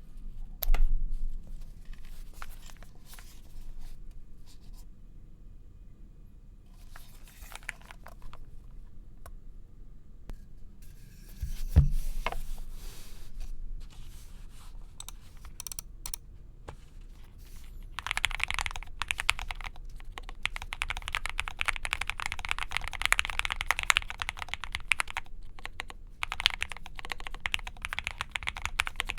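Owlab Spring mechanical keyboard with lubed Gateron Oil King linear switches on a POM plate: a few scattered keystrokes and two louder knocks, then fast continuous typing over the last ten seconds or so.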